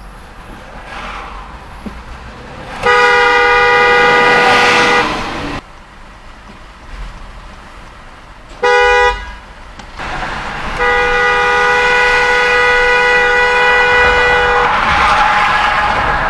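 Car horn honking three times: a blast of about two seconds, a short toot, then a long blast of about four seconds. A steady rush of traffic noise follows.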